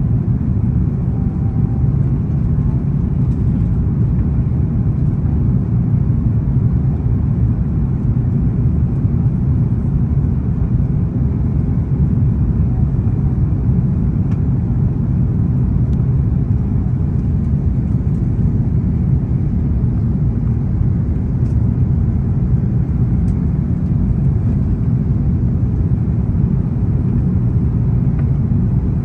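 Steady cabin noise inside an Airbus A330-300 airliner on its descent to land: a low rumble of jet engines and airflow, unchanging throughout.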